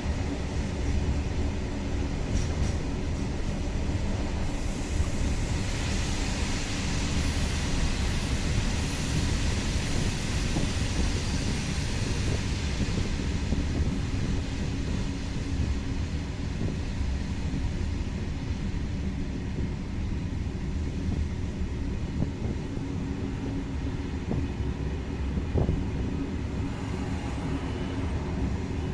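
InterCity train running on the track: a steady low rumble of wheels on rails. A higher hiss rises over it about five seconds in and dies away by about fifteen seconds.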